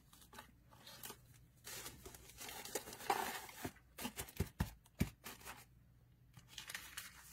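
Rustling and crinkling as paper and plastic packaging are handled, with a few sharp knocks about halfway through.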